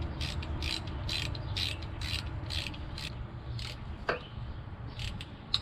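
Hand ratchet wrench clicking as it tightens down the retaining bolt of a camshaft timing solenoid on a 2.4 L Ecotec engine, a steady run of about two clicks a second.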